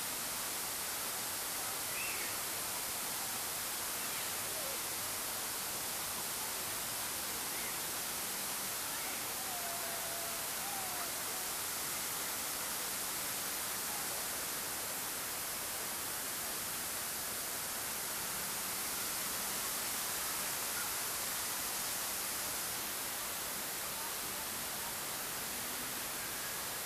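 A steady, even hiss, strongest in the highs, with no clear events in it.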